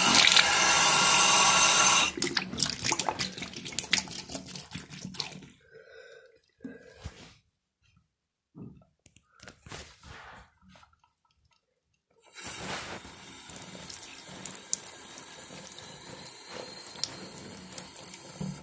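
Tap running into a bathroom sink, cut off sharply about two seconds in, followed by water draining and dripping in the basin. A few small sounds follow, then a quieter steady rushing noise sets in about twelve seconds in.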